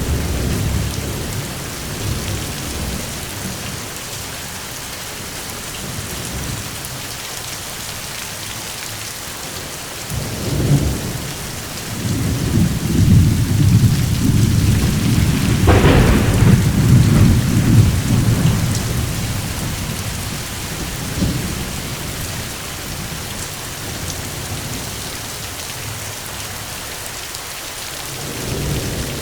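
Steady rain with rolling thunder: a short rumble about a third of the way in, a long rumble through the middle with a sharper crack near its peak, and another rumble building near the end.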